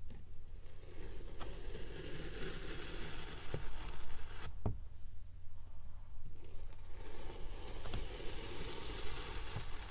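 A crinkle-cut metal blade slicing down through a block of kinetic sand: a grainy scraping hiss, twice. The first cut runs for about four seconds and stops abruptly with a soft knock, and the second starts about two seconds later.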